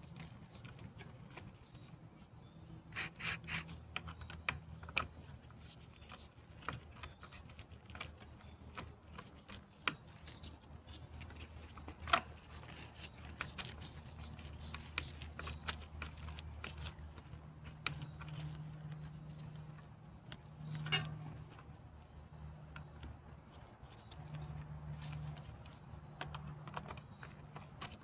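Scattered small clicks and light rubbing from hand-tool work on a bicycle disc brake caliper, starting and tightening its mounting bolts, with a few sharper knocks, the loudest about twelve seconds in and another near twenty-one seconds. A low steady hum runs underneath.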